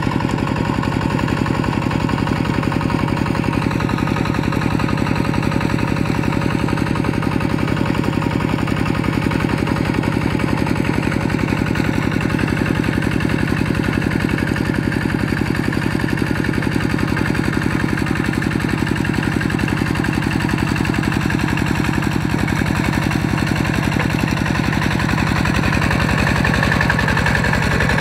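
Kubota RT120 single-cylinder diesel engine on a two-wheel walking tractor running steadily under load as the tractor's cage wheels work through a flooded paddy, its firing beat even throughout.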